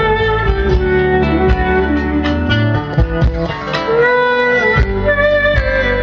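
Live Turkish instrumental music: a kanun (plucked zither) playing a quick, ornamented melody over a steady bass and drum beat.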